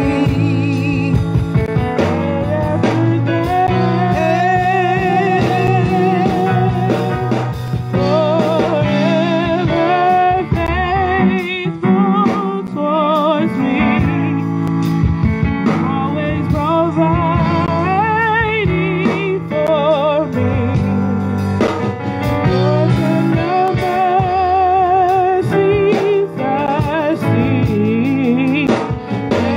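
A woman singing a gospel song into a microphone, her voice wavering with strong vibrato as it comes through a PA loudspeaker, over steady instrumental accompaniment.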